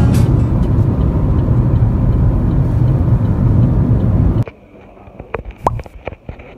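Steady low rumbling road noise of a moving vehicle for about four and a half seconds, then it cuts off suddenly to a quiet room with a few light knocks and clicks from handling the phone.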